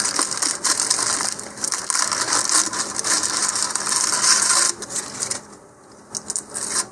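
Clear plastic film being peeled off a cardboard rocket body tube and crumpled, a dense crinkling crackle that stops about five seconds in, followed by a few soft handling sounds.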